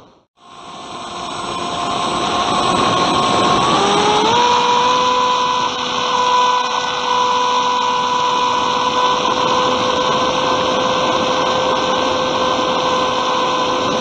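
Bixler 2 RC plane's electric motor and propeller whining steadily under rushing airflow, heard from the onboard camera; after a brief silent gap at the start, the whine rises in pitch about four seconds in as the throttle goes up, then holds steady.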